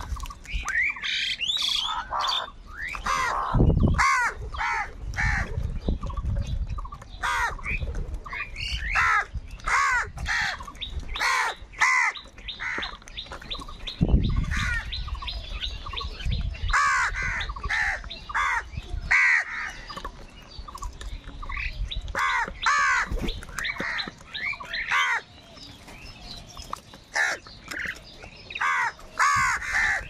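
A flock of house crows cawing, many harsh calls overlapping and following one another without a break.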